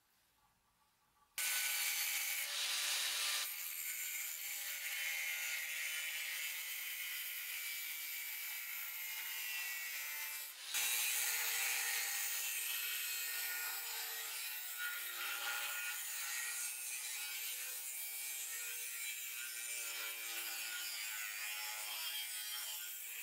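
Angle grinder with a thin abrasive cut-off disc cutting through steel: a steady, high grinding hiss that starts suddenly about a second and a half in, breaks off briefly around ten seconds in, then carries on.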